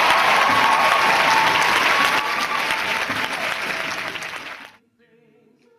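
Audience applauding and cheering, with a held whistle or shout over the clapping. It fades and then cuts off suddenly a little more than halfway through.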